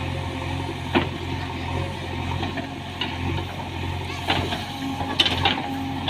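JCB 3DX backhoe loader's diesel engine running steadily under hydraulic load while the backhoe digs soil, with sharp metallic knocks from the bucket and boom about a second in and several more after the fourth second.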